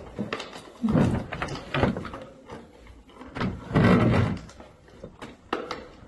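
Irregular knocks and bangs, with two louder bangs about a second in and around four seconds in.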